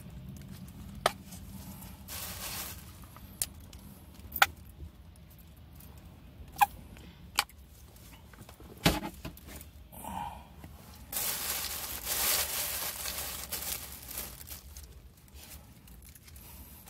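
Handling noises as a sandwich is put together: a few sharp clicks spaced a second or two apart, a thump about nine seconds in, then several seconds of rustling and crinkling.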